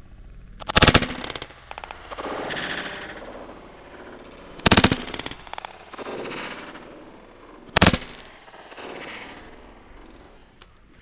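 Three shotgun shots, a few seconds apart, each followed by a long rolling echo that dies away.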